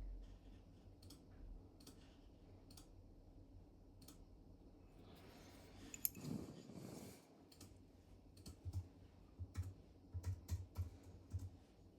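Faint light clicks and taps of small watchmaking tool parts being handled, with a brief louder scrape about six seconds in and a quick run of soft knocks near the end.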